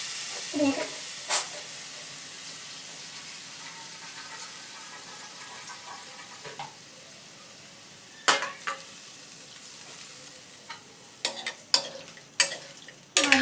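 Chicken and potato curry sizzling in an aluminium kadai, a steady hiss that slowly fades. A metal ladle knocks and scrapes against the pan a couple of times about a second in and again in a run of clicks near the end as the curry is stirred.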